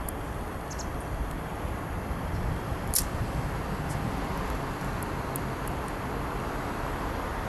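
Steady outdoor background noise, mostly a low rumble, with one short sharp click about three seconds in.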